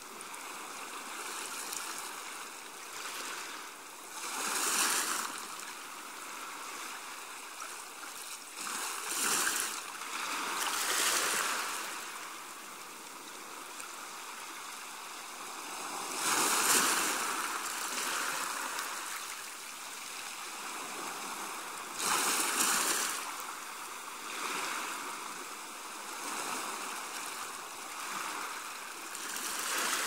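Waves washing onto a beach: a steady wash of water that swells into a louder surge every few seconds.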